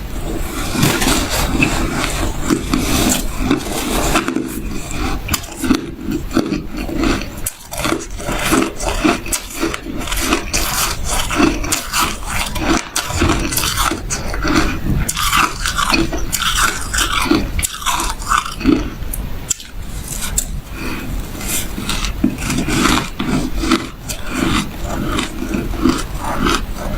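Shaved ice being bitten and chewed close to the microphone: a fast, continuous run of crisp crunches.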